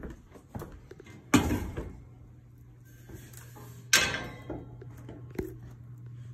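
Two loud knocks about two and a half seconds apart, each trailing off in a short ring, with a lighter click near the end, over a low steady hum.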